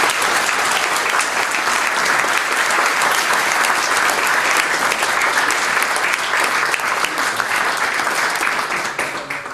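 Audience applauding, a steady mass of clapping hands that dies away near the end.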